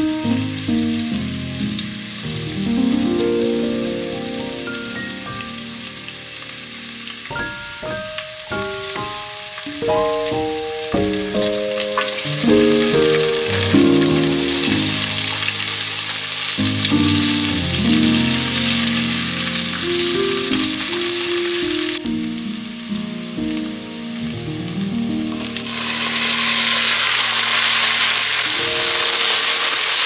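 Food sizzling in a frying pan under background music with a stepping melody. The sizzle grows louder through the middle, drops away briefly, and comes back strongly near the end.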